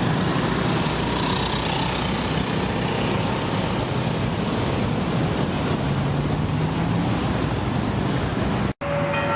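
A heavy vehicle running: steady engine tone under continuous loud noise, which breaks off abruptly near the end.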